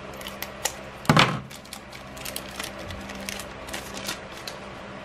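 Scissors cutting open a foil trading-card booster pack, with one sharp snip about a second in, then crisp crinkling and rustling of the foil wrapper as the cards are pulled out.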